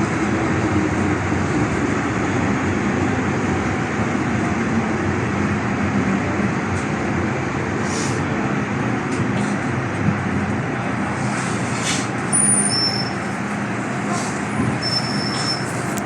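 MTR M-train electric multiple unit running along the track, a steady rolling rumble heard from on board with a faint motor hum. A few short high-pitched squeals come in the last few seconds.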